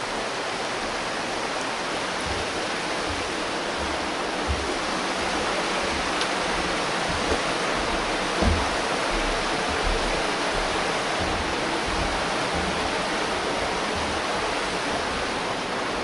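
Steady rushing of a mountain stream and its waterfalls running high, with a few soft low thumps.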